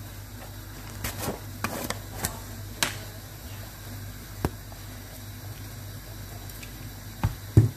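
Scattered light clicks and taps of hands and containers at work while flour and a powdered chicken fry mix are added to a bowl of raw chicken, over a steady low hum. Two heavier knocks come near the end.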